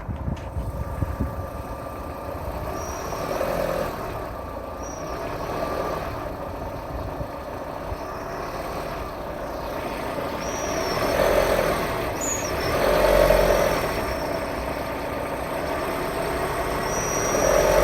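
Renault Duster 1.6 petrol engine revved up and down several times, with a thin high-pitched whistle that comes and goes as the revs rise. The whistle shows up with the canister purge hose pulled off the throttle body and its port plugged; on the warm engine it appears only under throttle.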